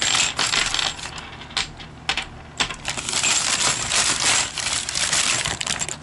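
A mass of loose steel wood screws clattering and jingling against each other, dense and continuous, with a brief lull about two seconds in.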